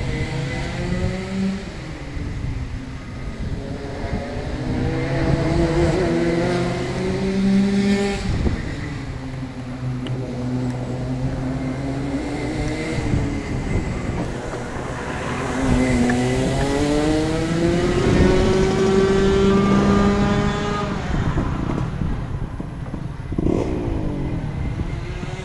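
Racing kart's engine heard onboard, revving up through the gears for several seconds at a time and then dropping sharply as the driver lifts for corners, about three times. Near the end the engine note falls lower and quieter as the kart slows.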